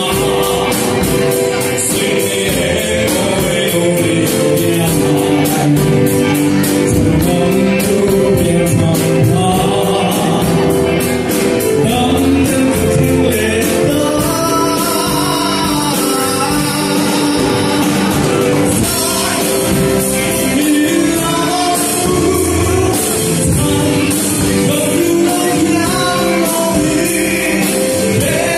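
Live band music with a singer: a voice sings over a drum kit keeping a steady beat.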